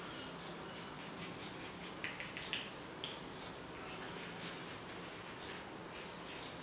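Chalk drawing on a blackboard: a run of quick short scratching strokes, with a few sharp taps of the chalk against the board a little past the middle, then longer scraping strokes with a high hiss near the end.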